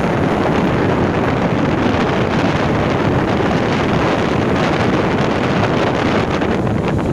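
Steady, loud wind buffeting the microphone, mixed with the surf of a rough sea breaking on a sandy beach.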